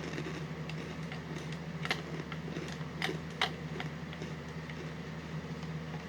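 Someone eating chocolate cereal: scattered sharp clicks and crunches, the strongest about two, three and three and a half seconds in, over a steady low hum.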